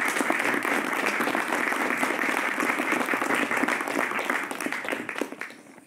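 Audience and cast applauding, a dense steady clapping that fades away near the end.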